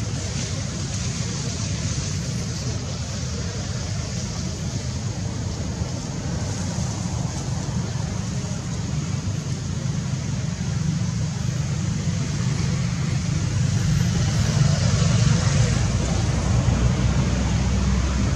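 Steady outdoor background noise: a low rumble that swells about fourteen seconds in, under a constant high hiss.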